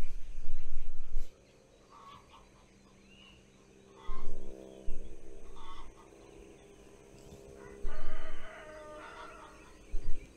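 A rooster crowing about eight seconds in, with shorter calls before it. Loud low rumbles come near the start and again with the crow.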